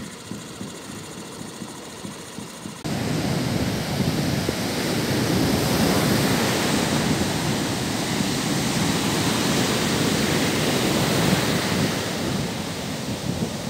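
Rough sea surf breaking on a sandy shore, mixed with wind blowing on the microphone. It is quieter at first, then a loud, steady rushing comes in suddenly about three seconds in.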